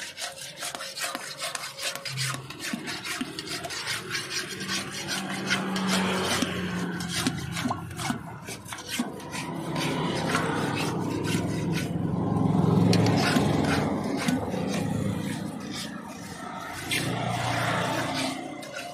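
Iron rod scraping and grating around the inside of a galvanized metal bucket as sugared shikanji water is stirred in ice, its base starting to freeze into slush. The scraping comes as quick repeated strokes, and a low hum rises and fades behind it around the middle.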